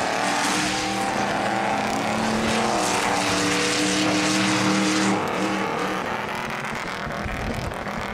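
Off-road 4x4 race buggy's engine running at steady revs as it races across the dirt course. Louder until about five seconds in, then it drops away as the buggy moves off.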